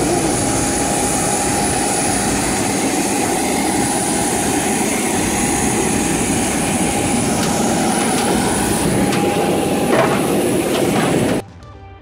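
Jet aircraft running on the apron: a loud, steady rush with a steady whine and a thin, very high whistle held over it. It stops abruptly near the end.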